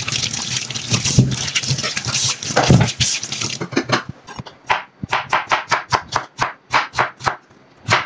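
Water splashing in a stainless steel sink as raw potatoes are rubbed clean by hand, with a few knocks against the sink. Then, about four seconds in, a kitchen knife slicing a raw potato into rounds on a wooden chopping board, about four even strokes a second.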